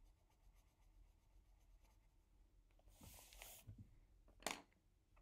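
Faint scratching of drawing strokes on paper: a stroke lasting under a second about three seconds in, and a shorter, sharper one near the end.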